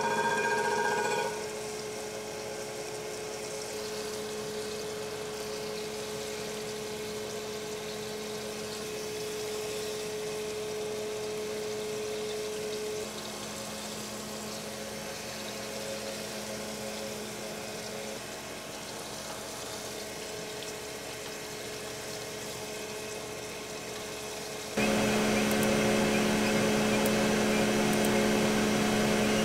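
Crankshaft grinder running, its wheel and the Cummins L10 crankshaft turning with coolant flowing over the journal: a steady machine hum with a hiss of liquid. One of the hum's tones drops out about halfway, and the hum steps up louder near the end.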